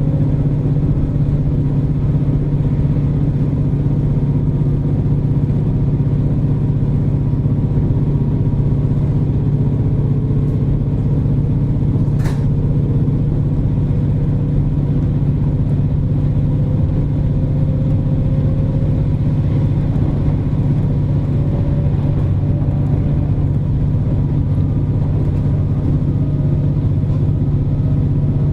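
KiHa 47 diesel railcar under way, heard from inside the car: a steady diesel engine drone with running noise, a faint tone slowly rising in pitch, and one sharp click about twelve seconds in.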